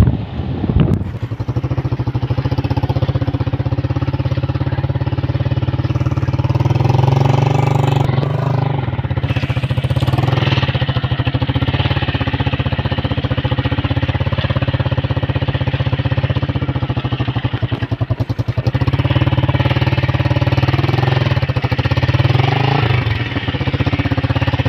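Motorcycle engine running as the bike is ridden over a rough, muddy dirt track, its note rising and falling with the throttle a few times.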